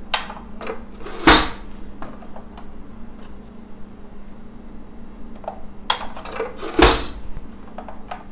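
Manual push-down food chopper being pressed down through onion pieces: two loud plastic strikes, one about a second in and one late on, with lighter clicks as the lid and onion are set in place between them.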